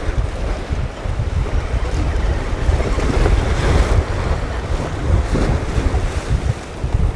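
Wind buffeting the microphone over ocean surf washing against jetty rocks, with a wave breaking a little past the middle.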